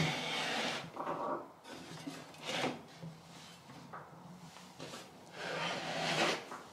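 Irregular rubbing and scraping handling sounds: several short scrapes and a longer one near the end, over a faint steady hum.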